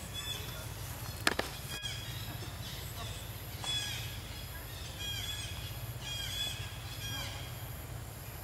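A bird calling repeatedly in short, high, arched notes that come in quick runs, over a steady low rumble, with one sharp click just over a second in.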